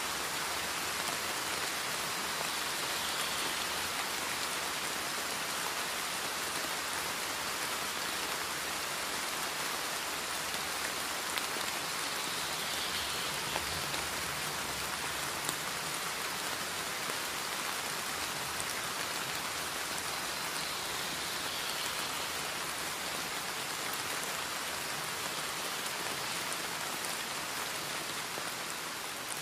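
Steady rain: an even hiss with a few faint drop ticks, used as the masking track of a subliminal affirmation recording. It begins to fade near the end.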